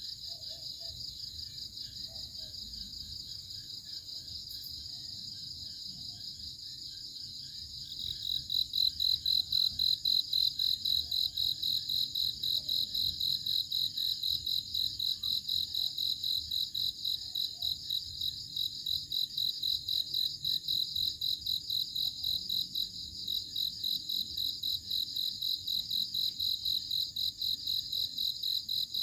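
Crickets chirping in a steady, rapidly pulsing high-pitched trill; about eight seconds in a louder, closer cricket starts up and keeps chirping at an even rhythm.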